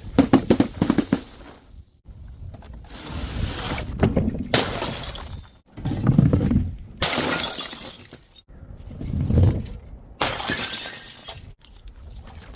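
Glass bottles striking hard ground and shattering: a quick clatter of impacts at the start, then several more crashes of breaking glass a few seconds apart.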